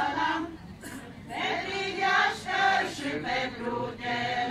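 A group of women singing a Romanian folk song together. About half a second in the singing drops away briefly, then comes back in short separate phrases before running on again near the end.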